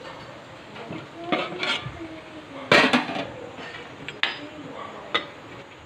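An aluminium plate used as a lid clinking and clanking against an aluminium cooking pot as it is handled and lifted off: a handful of sharp metallic knocks, the loudest about three seconds in.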